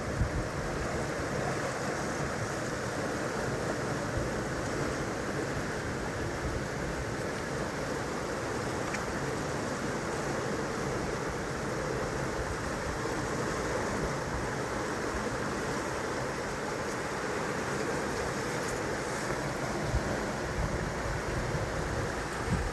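Steady rushing of flowing water, an even noise that stays at the same level throughout.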